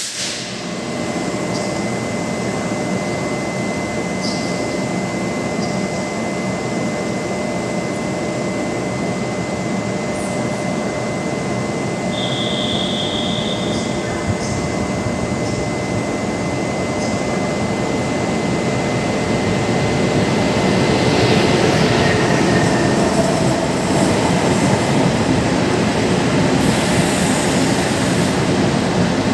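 E200-class electric locomotive standing at a station platform, its on-board equipment humming steadily with a thin high whine. From about twenty seconds in, another train runs in on the next track and the rail noise grows louder.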